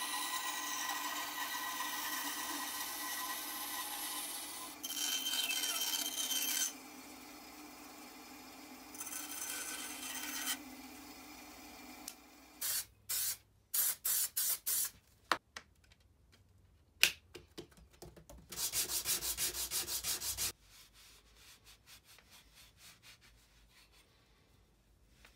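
Abrasive work on a wooden ash hammer handle: steady sanding at first, then separate bursts and quick runs of back-and-forth strokes of sanding or rasping on the wood, with one sharp click partway through.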